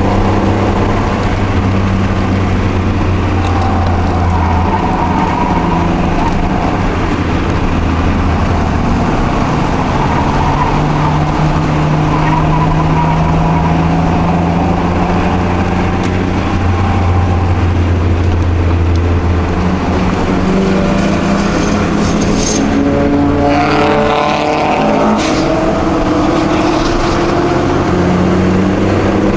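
Cabin sound of a Mk2 Toyota Supra's 5M-E straight-six running hard under load on track, its pitch holding for long stretches and then shifting. About three-quarters of the way through, the revs rise and fall in quick glides.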